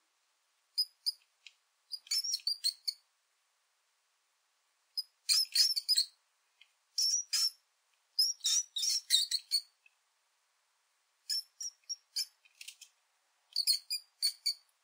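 Mouse squeaking sound effect: short, high-pitched squeaks in quick clusters of about a second, with brief silences between the clusters.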